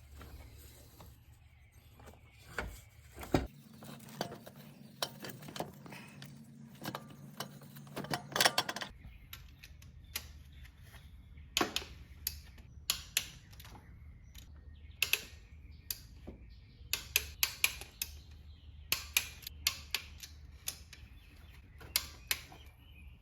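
Irregular sharp metallic clicks and clinks of hand tools and car parts being handled, some in quick clusters. A low steady hum runs under them from about three seconds in to about nine seconds in.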